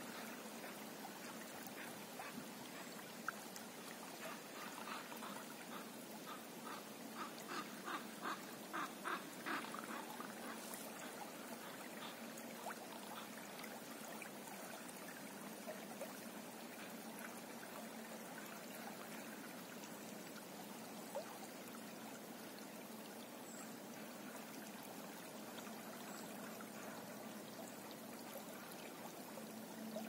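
Small river flowing over a shallow stretch: a steady, gentle splashing and babbling of water. About four seconds in, a run of short, evenly spaced sounds comes at about two a second for some six seconds.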